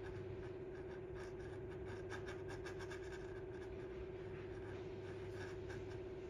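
Hot soldering iron tip scraping over black plastic trim, pressing stainless steel mesh into the softened plastic, with faint scratchy crackles, thickest in the middle, over a steady hum.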